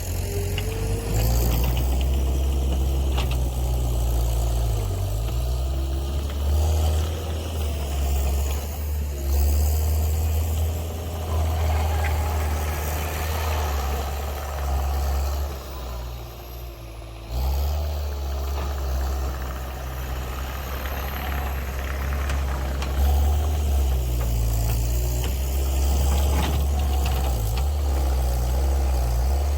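Caterpillar 289C compact track loader's diesel engine running steadily as it works, its low drone swelling and easing, with a brief drop about two-thirds of the way through before it picks back up.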